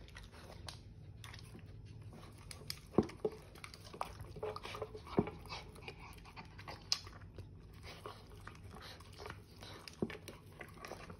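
A Mini Bully dog eating raw food from a stainless-steel bowl: wet chewing and licking, with sharp clicks a few times, the loudest about three and five seconds in.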